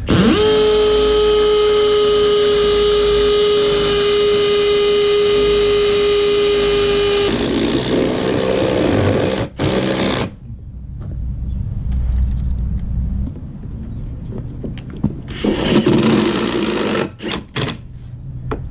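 Milwaukee cordless drill spinning up with a quickly rising whine, then running at a steady high speed for about seven seconds as it bores through the plastic line-set cover fitting into the block wall. A shorter, rougher second run of the tool comes about sixteen seconds in.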